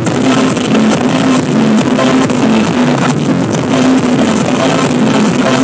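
Loud dance music with a steady beat, played through a large PA speaker stack.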